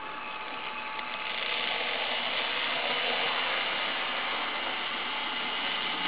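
HO-scale model ballast tamper running along the track, its small motor and gear train whirring steadily, getting louder about a second in.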